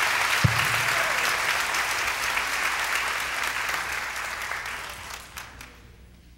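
Audience applause, dense at first, then thinning and dying away over the last couple of seconds. A short low thump sounds about half a second in.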